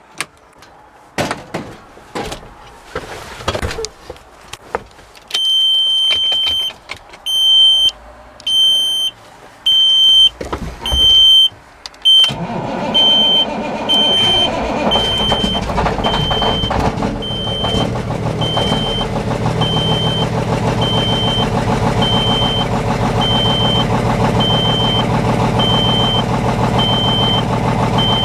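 Knocks and clicks of getting into a big-rig cab, then a dash warning beeper pulsing rapidly while the 1999 Peterbilt 379's diesel engine cranks and fires partway through. The engine then idles steadily while the beeper keeps sounding in slower, evenly spaced beeps.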